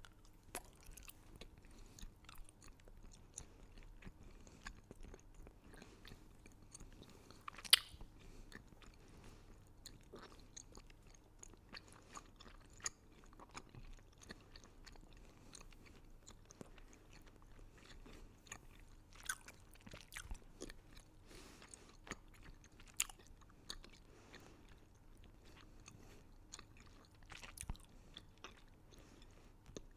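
Close-miked crunching and chewing of hard candy: irregular sharp cracks and crackles with wet mouth sounds between them, the loudest a single sharp snap about eight seconds in.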